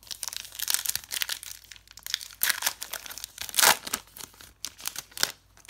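Foil wrapper of a trading card pack crinkling and crackling as it is torn open by hand, in a quick run of irregular crackles with one louder rip near the middle.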